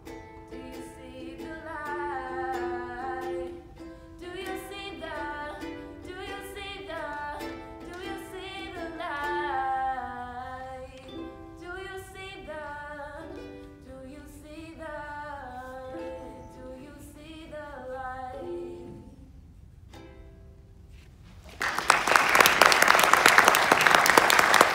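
A woman singing to her own strummed ukulele, ending her song about nineteen seconds in. A couple of seconds later, loud applause breaks out and carries on.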